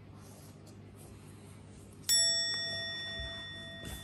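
A single bell ding about halfway through: a clear, sudden strike with several ringing tones that slowly fade. Before it there is only faint room noise.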